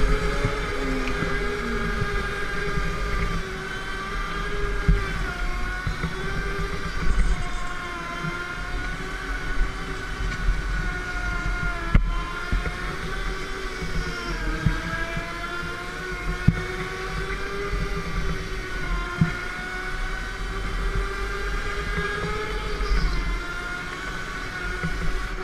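Go-kart heard from on board during a lap, its motor note rising and falling with speed through the turns, over a low rumble with small knocks from the ride.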